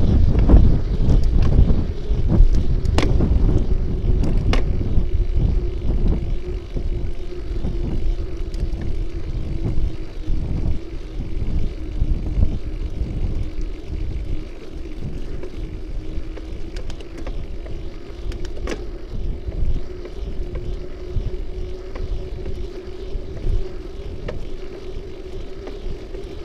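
Wind buffeting the microphone of a bicycle-mounted camera while riding, with road rumble and a steady hum, gradually getting quieter. A few sharp knocks come about 3 and 4.5 seconds in and again near 19 seconds.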